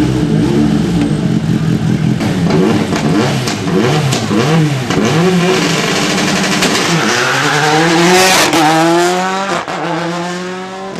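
Rally car engine revving up and down repeatedly while held on the start line. About seven seconds in it launches and accelerates hard, with a rush of noise as it pulls away. It changes up a gear and its sound fades as it leaves.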